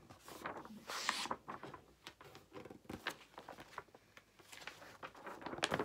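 Paper rustling and soft taps as the pages of a large picture book are handled and turned, with a louder brush of paper about a second in and another flurry near the end.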